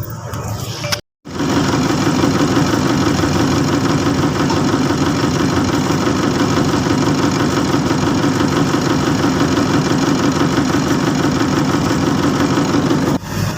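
Engine of a piece of heavy road-works machinery running steadily with an even, rapid chug. The sound cuts out for a moment about a second in, then carries on unchanged until a brief dip near the end.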